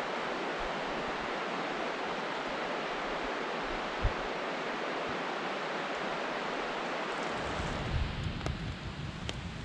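A forest stream running over rocks: a steady, even rush of water, with a single low thump about four seconds in. Near the end the water gives way to a campfire crackling, a few sharp pops over a low rumble.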